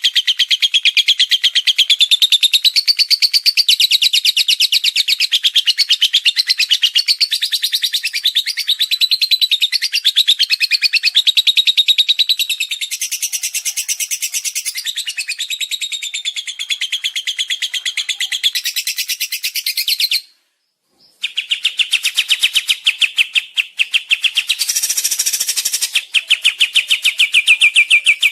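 Songbird singing a fast, unbroken run of high-pitched trills and chattering notes, a 'tembakan' (rapid-fire) song; it breaks off for about a second about two-thirds through and then carries on.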